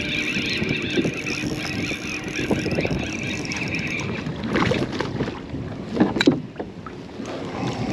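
Spinning reel being cranked, a steady whir for about four seconds while a fish is played on a bent rod, then a few short sharp noises.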